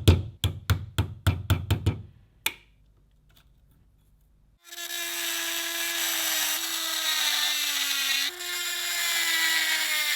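A quick run of sharp knocks, about five a second, and one more a moment later. Then a small electric power tool starts and runs steadily, its pitch sagging slightly as if under load and jumping back up twice.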